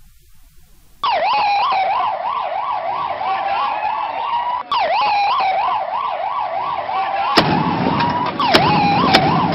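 Emergency vehicle siren, starting suddenly about a second in and sweeping rapidly up and down in a yelp, with stretches of slower rising wail; it breaks off briefly near the middle. Near the end a few sharp clicks cut through it over added noise.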